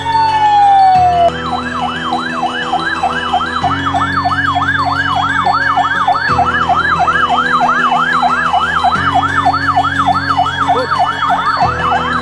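An electronic siren sounds the earthquake drill alarm. It switches from a slow wail to a fast yelp of about four rises and falls a second, over steady low tones that change every few seconds.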